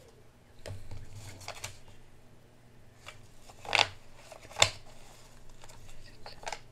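Paper banknotes rustling and flicking as a stack of bills is handled and squared up by hand, in short separate rustles with a louder one a little past halfway and a sharp tap just after it.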